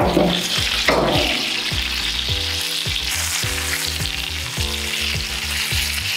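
Skin-on chicken thighs sizzling in a cast iron skillet of hot rendered chicken fat, a steady frying hiss. A couple of knocks near the start as the pan is set down on the grill grates.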